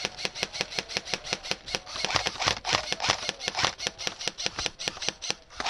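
Airsoft rifles firing rapid, even strings of sharp shots, about nine a second with only brief breaks: suppressive fire to keep the opponents' heads down.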